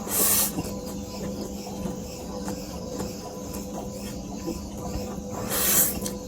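Two short, loud slurps of noodles being sucked into the mouth, one at the very start and one near the end, over a faint steady hum.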